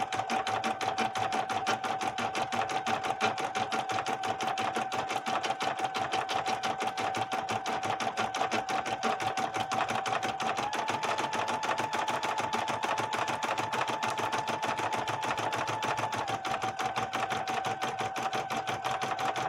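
Brother PE770 embroidery machine sewing a satin stitch: a rapid, even run of needle strokes over a steady motor whine. The whine steps up a little in pitch just past halfway and drops back down a few seconds later.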